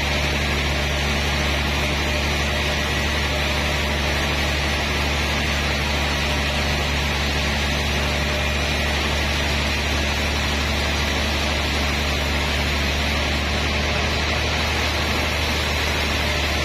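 Large vertical band sawmill running steadily while it cuts lengthwise through a big trembesi (rain tree) log: a constant low hum under an even hiss from the blade.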